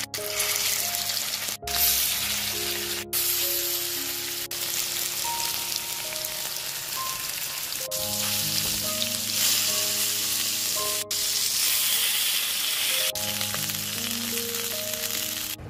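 Masala-coated fish pieces sizzling as they shallow-fry in hot oil in a pan, a dense steady hiss that drops out for an instant a few times. Background music plays underneath.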